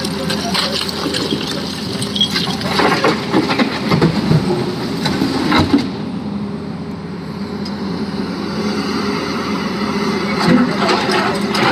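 A heavy diesel engine runs steadily as an excavator loads a dump truck. From about two to six seconds in, and again near the end, there is a run of knocks and clatter, typical of stone dropping into a tipper body.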